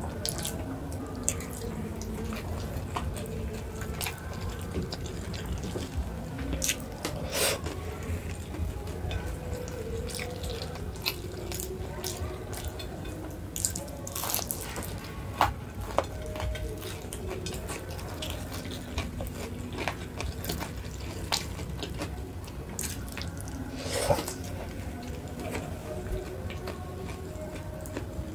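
Close-miked eating sounds: wet chewing with many scattered sharp mouth clicks, over a steady low hum.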